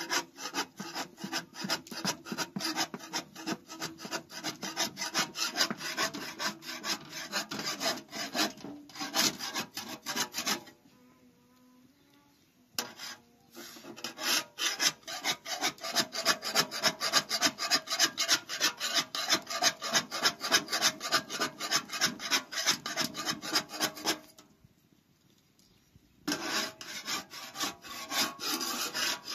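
Fast, rhythmic rasping strokes, about four a second, like a rasp or saw worked back and forth. The strokes stop twice for about two seconds, about ten seconds in and again after about twenty-four seconds.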